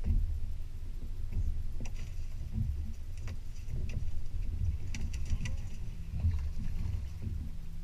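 Uneven low rumble of wind and choppy water around an open boat, with a few light, sharp clicks scattered through it, several close together about five seconds in.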